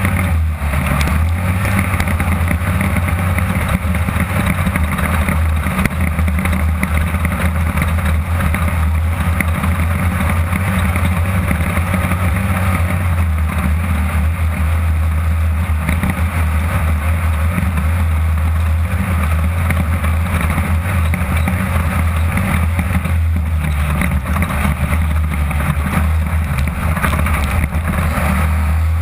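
Onboard sound of a 1600cc-class desert race buggy at speed: the engine runs hard and steady, a constant low drone over a rushing noise, with no big changes in revs.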